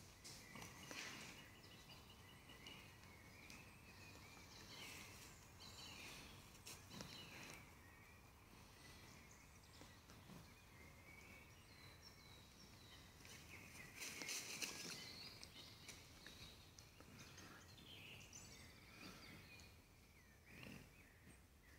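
Faint woodland birdsong: many small birds chirping and trilling over a quiet background, with a few brief noisy bursts, the loudest about two-thirds of the way through.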